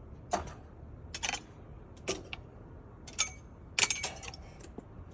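Irregular sharp crunches and clinks of ice and hard snow, about a dozen in all, the loudest cluster near four seconds in, over a low rumble of wind on the microphone.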